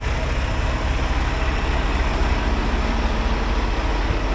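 Steady low rumble of a semi-truck's engine and cab, running evenly with a faint steady hum over it.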